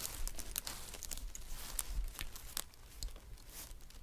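Packing material crinkling and rustling as hands rummage in a cardboard box, with many small irregular crackles and clicks.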